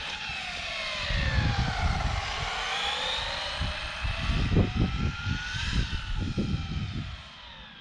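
Traxxas Slash 4x4 RC truck's brushless electric motor and drivetrain whining on asphalt. The whine dips in pitch, climbs back up as the truck speeds up, then falls away near the end. A gusty low rumble runs underneath.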